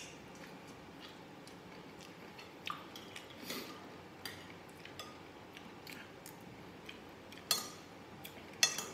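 Metal spoon and fork clinking and scraping against a glass bowl of rice in scattered short clicks, the two sharpest near the end, with quiet chewing in between.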